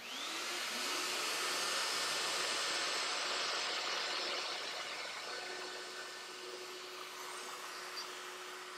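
Plunge router with a 1/4-inch spiral bit spinning up, its whine rising quickly at the start, then running steadily as it cuts the shallow first pass of a groove in a wood panel. The noise eases a little in the second half.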